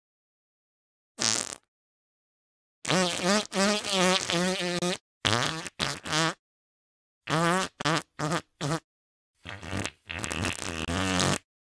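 A run of buzzy, fart-like noises in short melodic phrases, the pitch stepping up and down, each phrase cut off abruptly into silence.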